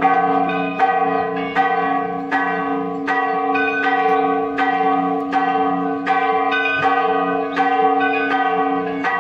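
Church bells ringing, struck at an even pace of about one stroke every 0.8 seconds, each stroke ringing on into the next.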